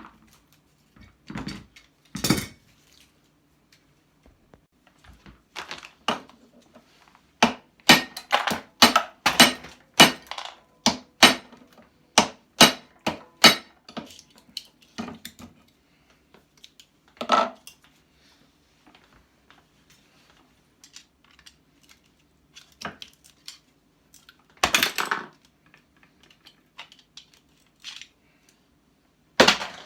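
Metal knocks and clinks from hand tools working apart a small electric motor to get at its copper: a run of sharp strikes about two a second near the middle, then scattered single knocks.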